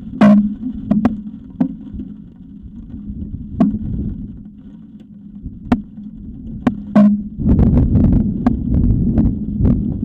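High wind buffeting the outdoor microphone of an eagle-nest camera, a low rumble that swells into a long heavy gust about seven and a half seconds in. Scattered sharp clicks and knocks come through it.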